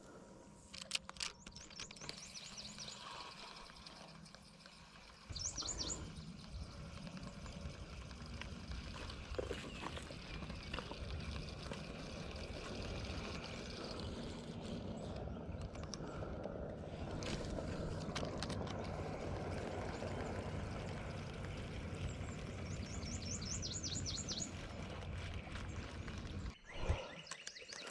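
A steady low rumble sets in about five seconds in and runs until shortly before the end. A bird's short high trill of quick chirps is heard twice, near the start and near the end.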